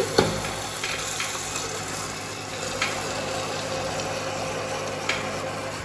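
Spiced masala sizzling steadily in a hot pot as boiled chickpeas and potato pieces are tipped into it, with a few soft taps, over the steady low hum of an induction cooktop.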